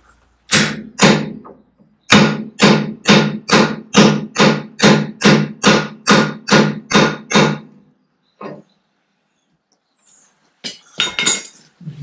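Hammer striking a steel bar used as a drift on a Fordson Major tractor's clutch and brake shaft, each blow ringing like metal. Two blows, then a steady run of about a dozen at roughly two a second, one more, and a short quick cluster near the end.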